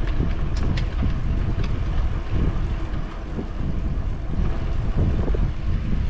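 Wind buffeting the microphone of a camera on a moving bicycle, a steady low rumble, with a few faint ticks in the first couple of seconds.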